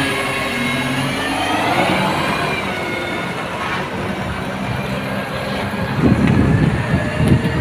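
Diesel engine of a side-loader garbage truck pulling away and driving past, its pitch rising as it accelerates. The rumble gets louder and rougher about six seconds in, as the truck's rear passes close by.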